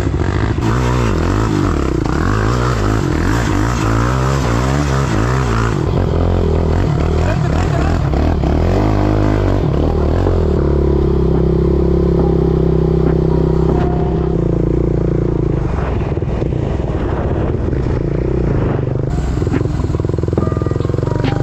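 Suzuki LT-R450 quad's single-cylinder four-stroke engine running, its pitch rising and falling through the first ten seconds or so, then holding steady.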